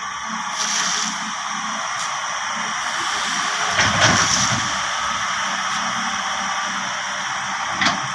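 John Deere 160 excavator working: a steady mechanical hiss, with a louder surge about four seconds in and a short click near the end.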